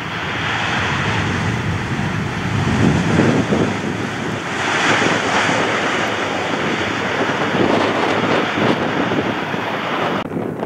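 Jet airliner passing, a loud steady rush of engine noise with wind buffeting the microphone; the high hiss cuts off suddenly near the end.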